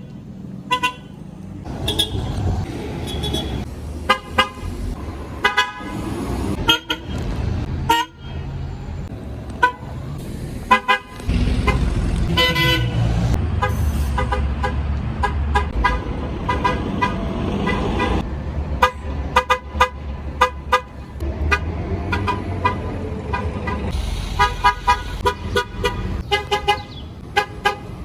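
MTA city bus horns sounding many short toots, some in rapid runs, over the low running of the buses' engines.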